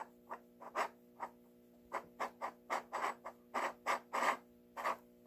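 A run of short, irregular scrapes and rubs on a wooden desktop from a block magnet and a 90% silver Morgan dollar sliding on the wood. The magnet nudges the coin along without lifting it, as a genuine silver coin behaves.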